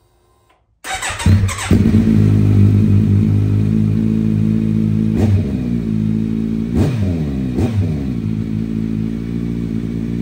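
Kawasaki Z900's inline-four running through a LeoVince LV10 Full Black slip-on exhaust: it fires up about a second in and settles into a steady idle. Three short throttle blips come in the second half.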